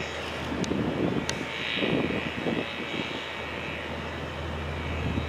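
Heavy diesel truck engine running with a low steady drone that grows louder near the end. Two faint clicks come in the first second and a half.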